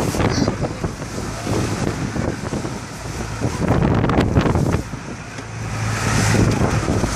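Strong wind buffeting the microphone, with rough water and waves surging underneath. The noise rises and falls in gusts over a low steady hum.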